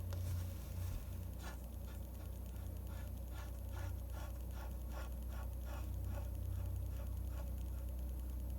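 A pen scratching on paper while a manga is drawn, in a run of short quick strokes, two or three a second, that thin out after about six seconds. A faint low hum sits steadily underneath.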